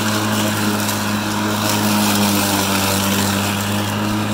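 Craftsman V60 60-volt cordless electric lawn mower running as it is pushed through grass, its motor and blade making a loud, steady hum that holds its pitch.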